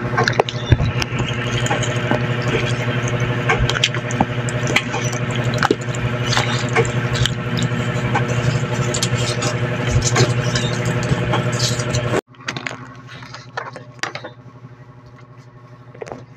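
A steady motor or engine hum with scattered small clicks, cutting off suddenly about twelve seconds in. After that only a faint background with a few light clicks remains.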